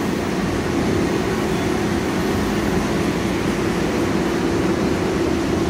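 Danhai light rail train standing at the platform, giving a steady, unchanging hum with one held tone.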